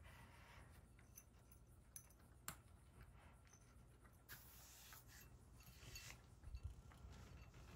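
Near silence, broken by faint clicks and soft scrapes from a cat eating out of a ceramic bowl on a stand, with a short scraping sound a little after four seconds as a hand works at the bowl.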